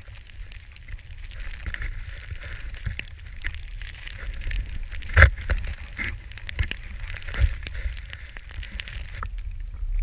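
Skis plowing through deep powder snow, a continuous crackling hiss of snow spray with wind buffeting the action camera's microphone, broken by a few sharp knocks, the loudest about halfway. The hiss drops away shortly before the end.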